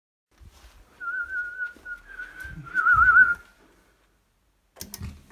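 A person whistling a short, high, nearly level phrase that breaks into a warbling trill near its end. A few sharp clicks and a low hum follow near the end.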